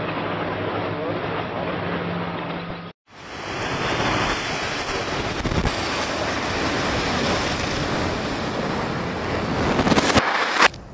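Long-reach demolition excavator running with a steady engine hum. After a sudden break, a loud rushing rumble of a structure collapsing in dust, with a few sharp bangs near the end before it cuts off.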